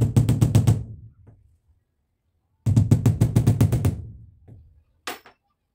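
Cordless power driver driving screws into the ceiling to fix a light-fitting bracket, in two bursts of about a second each with a rapid rattling hammer, then a short clack near the end.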